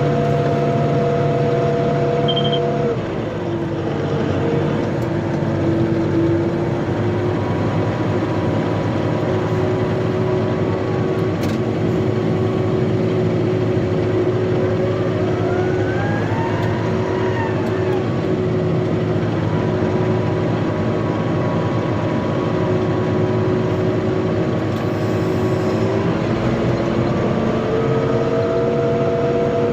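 Tractor engine driving a rotary power harrow, running steadily under load. The engine note drops about three seconds in and comes back up near the end, with a faint whine that rises and falls around the middle.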